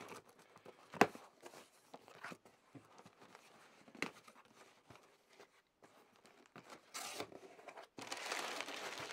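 Parcel packaging being pulled open and torn by hand: scattered rustles with sharp snaps about one and four seconds in, then steady crinkling and tearing near the end.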